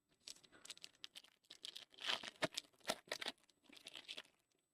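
Foil trading-card pack wrapper crinkling as it is torn open: a faint, rapid run of crackles and rustles, thickest about two seconds in.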